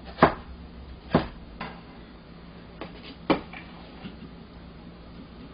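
A Chinese cleaver knocking against a cutting board a few times, well spaced, as diced onion is gathered onto the blade, then a louder knock about three seconds in as the cleaver is set on a ceramic plate to slide the onion off.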